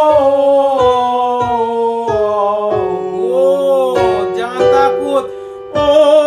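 Voices singing a vocal warm-up exercise on held vowels, the notes stepping down in pitch, with an instrument accompanying. About five seconds in there is a short dip, then a louder held note with vibrato.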